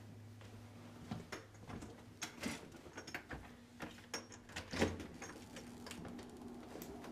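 A door being handled: a run of irregular clicks and knocks, the loudest about five seconds in, over a steady low electrical hum.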